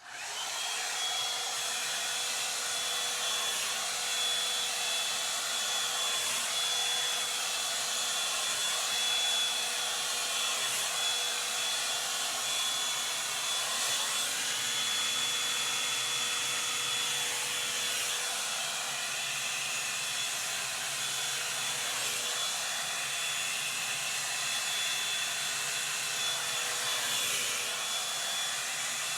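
Revlon One Step hot-air dryer brush switched on and running: a steady rush of blown air with a thin, steady high whine from its motor.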